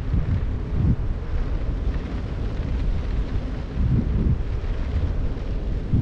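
Wind buffeting the microphone of a camera hung from a kite line: a low, rough rumble that swells in gusts about a second in and again about four seconds in.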